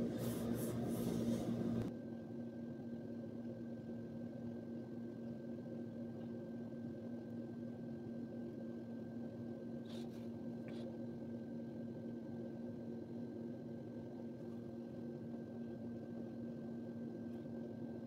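Steady low background hum with a faint high tone held throughout; two faint ticks about ten seconds in.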